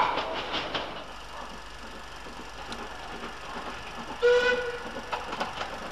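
Steam locomotive whistle: one short, shrill blast a little over four seconds in, then trailing off.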